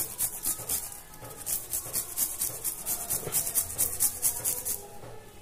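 Fresh ginger being grated on a hand grater into the tea pot: quick rhythmic rasping strokes, several a second, with a short pause about a second in.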